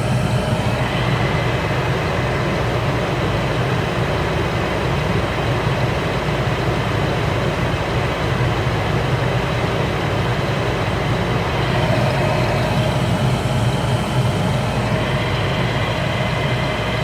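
Lennox G41 gas furnace running steadily, a constant low hum and rumble from its motors with a steady tone above it, lit and holding flame on a freshly cleaned flame sensor.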